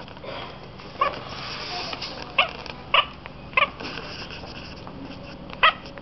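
House cat chirping at seagulls seen through a window: about five short, sharp chirps spread over a few seconds. This is the chattering call cats make when watching birds they cannot reach.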